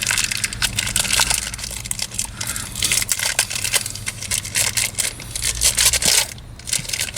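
Plastic interior trim being handled and worked into place, a dense run of crackling, rustling and small clicks.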